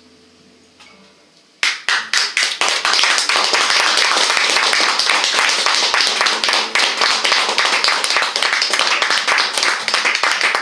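A held musical note dies away, then about a second and a half in, an audience starts applauding: dense, loud clapping that goes on steadily to the end.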